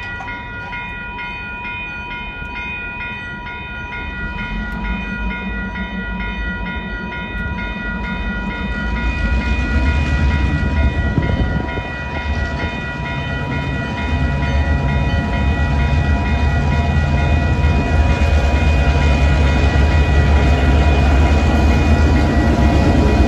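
A lashup of four-axle EMD GP9-type diesel locomotives drawing up to and passing through a level crossing, the low diesel engine sound growing steadily louder as they come close. Over it the crossing's electronic warning bell rings without a break.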